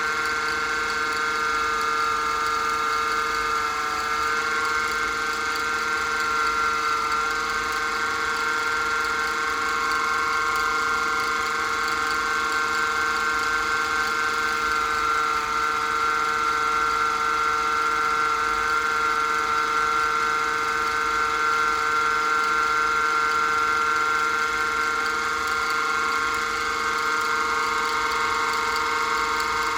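Small wood lathe running steadily with a constant motor whine that wavers slightly in pitch.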